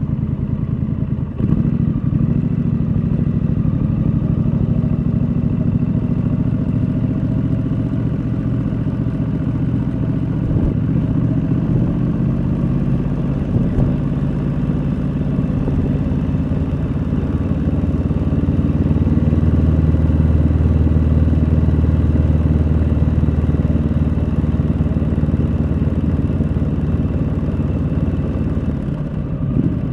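2019 Triumph Street Scrambler's 900 cc parallel-twin engine and exhaust running at low road speed. The note dips briefly about a second in, then grows louder and deeper for about ten seconds in the second half.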